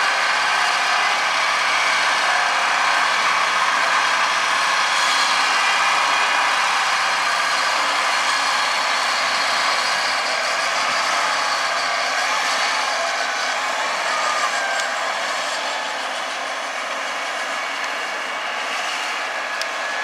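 John Deere crawler tractor working under load pulling a seven-furrow mounted plough: a steady engine and track noise with several high whining tones, easing slightly in the second half.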